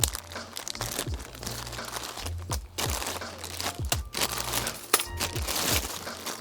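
Crinkling and sharp clicks from hands handling button-making parts, over background music with a steady bass beat.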